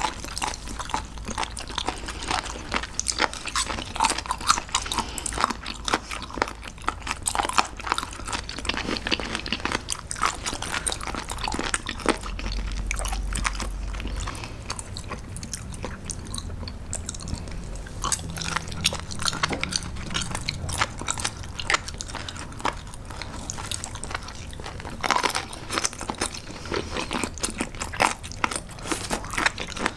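Crunchy, wet chewing and biting of raw seafood sashimi (gizzard shad, spoon worm and abalone): a dense run of small crackling crunches, thinning out for a while in the middle before picking up again.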